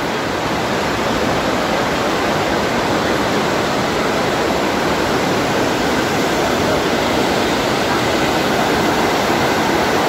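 Mountain river rushing over boulders: a steady, loud noise of fast-flowing water.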